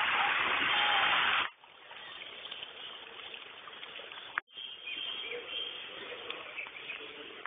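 A loud rushing noise that cuts off abruptly about a second and a half in, followed by much quieter outdoor background noise with faint thin tones.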